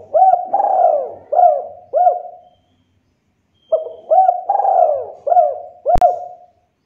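Spotted dove cooing in two phrases of about five notes each. The second phrase starts just under four seconds in, and a single sharp click comes near its end.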